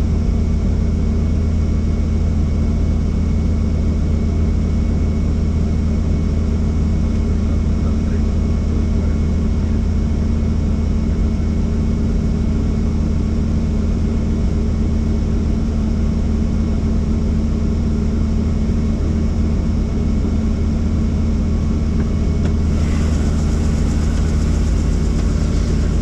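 A helicopter's engine and rotor give a steady, unbroken low drone. About three seconds before the end, a higher hiss joins it.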